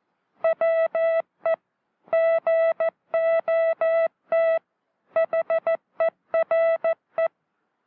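A Morse code phrase sent by hand as a single steady beep tone, in short dits and long das. The spaces are tight within each letter, longer between letters and longer still between the three words.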